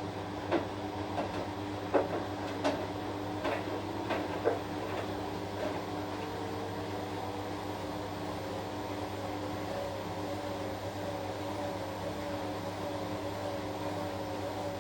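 Washing machine running with a steady hum, a few sharp knocks and clicks in the first six seconds, then a wavering whine from about six seconds in.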